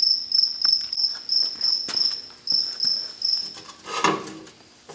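A cricket chirping in even pulses, about three a second, falling silent a little before the end. A few faint knocks and a brief rustle of handling come near the end.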